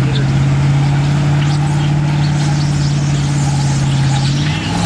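Pickup truck engine running hard under heavy load while dragging a weight-transfer pulling sled: a steady, loud drone whose pitch sags slowly as the sled bears down, then starts to climb near the end.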